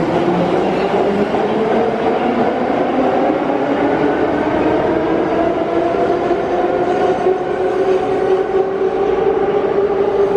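Warsaw Metro Wagonmash 81-572.2/81-573.2 series train pulling out of the station, its traction motors whining with a pitch that climbs steadily as it gathers speed, over the rumble of the wheels.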